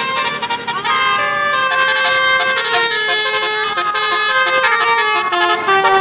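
Bus 'telolet' musical air horn playing a tune: a run of loud horn notes changing pitch step by step, several tones sounding together.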